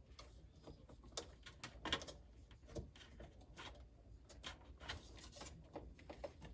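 Faint, irregular light clicks and taps from hands working on refrigerator parts.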